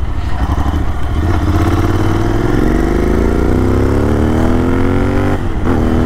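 Royal Enfield Interceptor 650's parallel-twin engine pulling under acceleration, heard from the rider's seat. Its pitch rises steadily for about four seconds, then drops briefly around five seconds in as if for a gear change, and picks up again.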